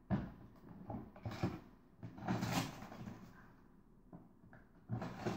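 Rummaging in a cluttered makeup drawer: several knocks and rattles of things being moved about, with a longer rustle about two and a half seconds in.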